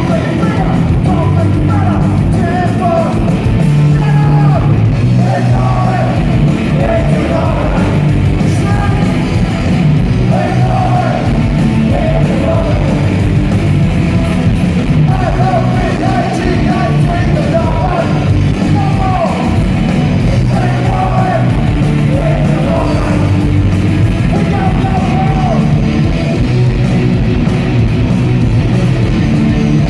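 Loud punk rock music with shouted, yelled singing over a full rock band.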